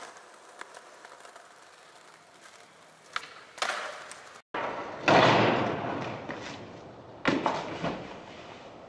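A skateboard slam on concrete steps: two hard impacts of board and body hitting the ground, the first about halfway through and the second about two seconds later, each trailing off in a rough scraping rattle. Before the impacts there is only faint street hush with a couple of light clicks.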